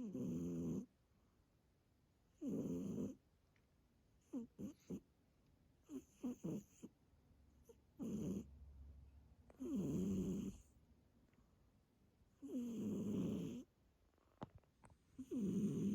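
A sleeping domestic cat snoring: a pitched snore about every two and a half seconds, with a few short, fainter breaths in between.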